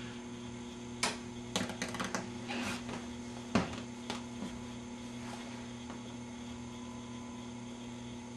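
Vintage Admiral 20X11 tube television being switched off: a scatter of sharp clicks and crackles over the first few seconds, the loudest about three and a half seconds in, over a steady mains hum that carries on after the set's sound has stopped.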